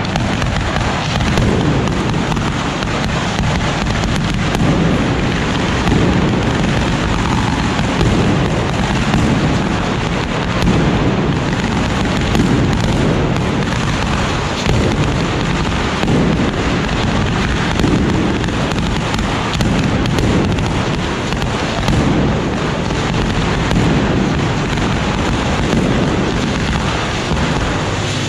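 Fireworks on a ceremonial cart going off in a dense, continuous barrage of crackles and bangs that swells and eases without stopping.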